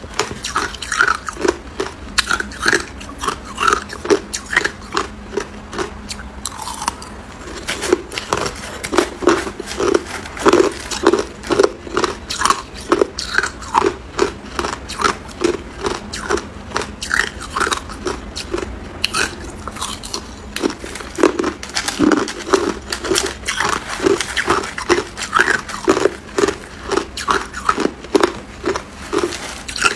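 Hard, clear ice chunks being bitten and crunched between the teeth: a steady, rapid run of sharp crunches that keeps going without a break.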